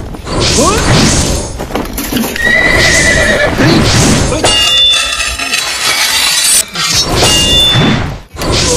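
Horse whinnies and galloping hoofbeats repeated as a comic sound effect, standing in for warhorses.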